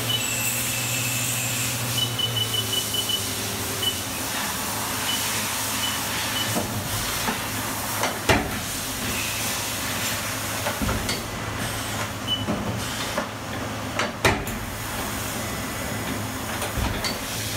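Haas VF-4SS CNC vertical mill running through its cycle: a steady hiss and machine hum as the spindle head moves and changes tools. Two sharp clunks come about eight and fourteen seconds in, with a few faint short high beeps scattered through.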